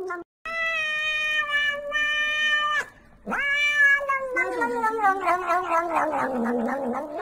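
Domestic cat meowing in three long drawn-out calls: the first held steady for over two seconds, a shorter second one, then a long wavering call that falls in pitch and turns rough near the end.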